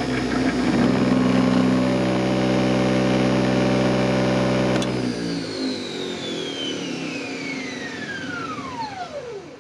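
48 V DC electric motor of a Toro LX460 lawn tractor converted to electric, running with a steady hum under drive. About five seconds in there is a click, and the motor's whine then falls smoothly in pitch as it spins down with the current cut to zero.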